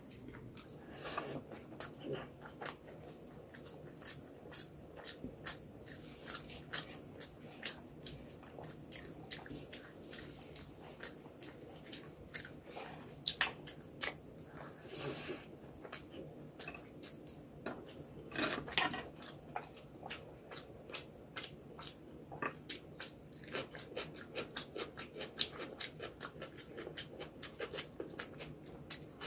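Close-miked mouth sounds of a person eating rice and egg curry by hand: wet chewing, lip smacks and small clicks at an irregular pace, with a few louder bites and denser clicking near the end.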